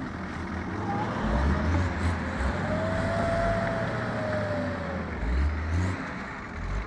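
Off-road vehicle's engine running with a low rumble, and a thin whine that rises and falls in pitch through the middle.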